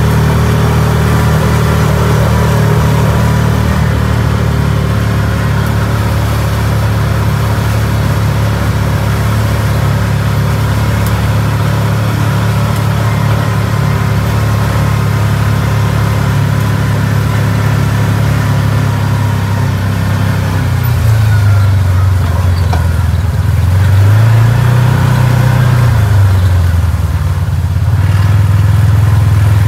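Side-by-side UTV engine running steadily while driving, with a drone of low tones; near the end the engine pitch rises and falls once.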